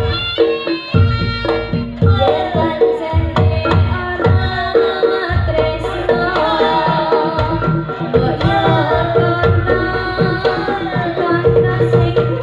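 Reog Ponorogo gamelan music: kendang hand drums playing busy strokes over steady gong-chime tones, with a bending melodic line on top.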